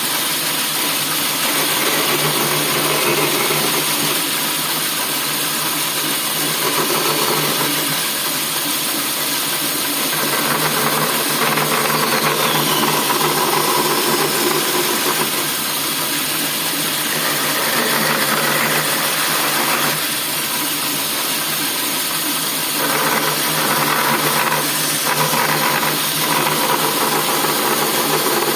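Homemade bandsaw running steadily, its motor humming under a dense whirring blade noise, with some rises and falls in the sound about two-thirds of the way through.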